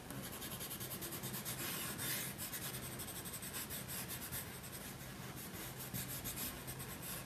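Coloured pencil scratching across paper in many quick, short back-and-forth strokes, shading in grass.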